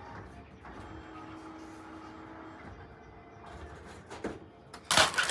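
Vending machine mechanism running with a steady hum for about two seconds, then a loud clatter near the end as the purchase comes down into the machine.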